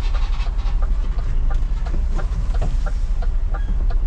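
Articulated lorry's diesel engine idling with a steady low rumble, heard from inside the cab. Short, high chirps repeat irregularly over it.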